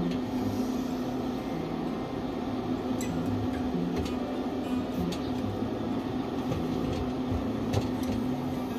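Steady hum of a GQF Sportsman 1502 cabinet incubator's circulation fan, with a few light clicks from plastic egg trays being handled.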